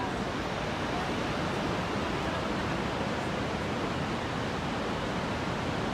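The Rhine Falls, a large waterfall, heard up close: a steady, dense rush of falling water with no change.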